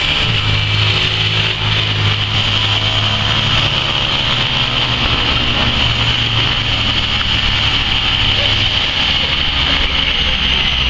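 Cessna 208B Grand Caravan's PT6A turboprop running at taxi power: a steady high turbine whine over a low propeller drone, the drone easing about nine seconds in.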